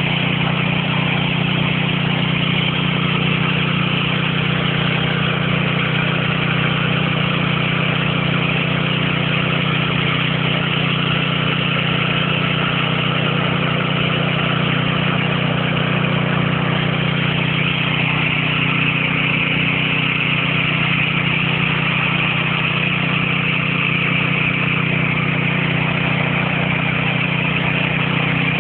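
Small engine-driven water pump running at a steady speed, with water gushing from its outlet pipe.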